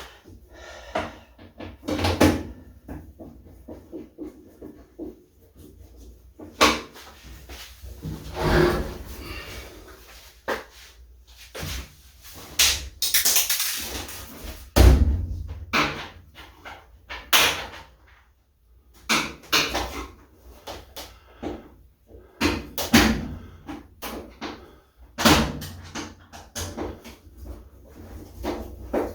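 Irregular knocks, clicks and clunks of hand-work on a washing machine's drum shock absorber as it is unclipped and changed, with a heavy thump about halfway through.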